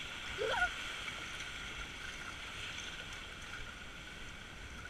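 Water rushing under an inner tube sliding down a water slide, a steady hiss. A brief rising squeal cuts in about half a second in.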